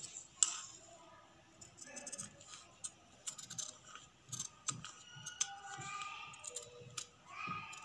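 Scissors snipping in short, irregular cuts while cutting out a blouse neckline pattern piece.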